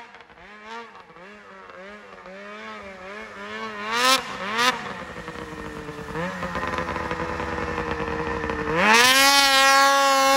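Ski-Doo 600RS race snowmobile's two-stroke twin, breathing through an MBRP race can, revving in short rising-and-falling blips that grow louder as the sled comes closer, with two sharp loud bursts about four seconds in. Near the end it jumps suddenly to full throttle and holds high revs as the sled wheelies.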